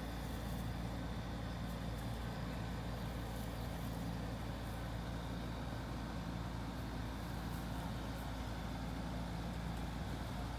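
Steady low mechanical rumble with a faint hum, like a running engine in the background, unbroken throughout.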